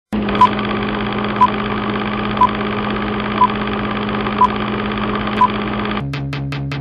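Old film-projector countdown sound effect: a steady projector whir and rattle with a short high beep once a second, six beeps in all. About six seconds in, the whir gives way to a faster, evenly spaced clicking.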